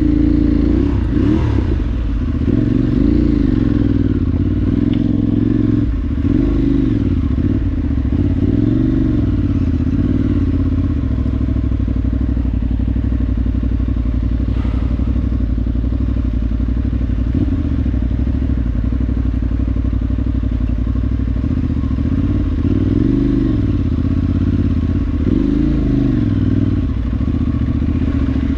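Motorcycle engine running on an off-road ride, its pitch rising and falling again and again with the throttle, with a few knocks along the way.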